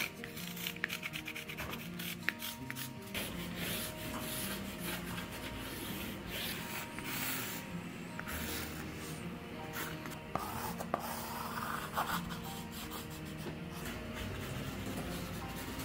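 Pencil scratching across cardboard in many short strokes as a sketch is drawn, over background music.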